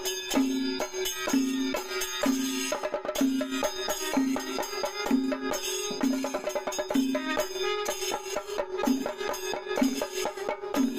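Background music with a steady beat: a low note repeating about once a second over a held tone, with quick percussion strokes throughout.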